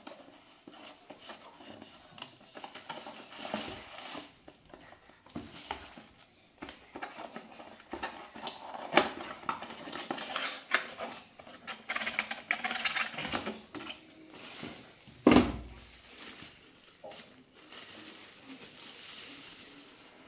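Cardboard box, paper and plastic packaging handled while a webcam is unpacked: irregular rustling, crinkling and light clattering of cardboard inserts. One louder thump about fifteen seconds in.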